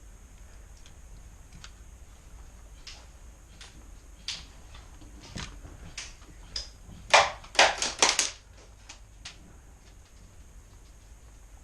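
Airsoft guns firing in scattered single sharp pops. A quick string of about five louder shots comes a little past the middle.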